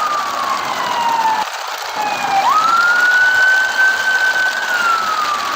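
A wailing siren, its pitch sliding down, sweeping quickly back up about halfway through, then holding and sliding down again, over a steady hiss.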